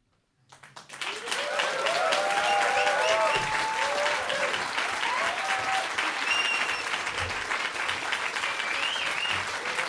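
Concert audience applause breaking out after a brief silence and quickly swelling, with whoops and cheers over the clapping.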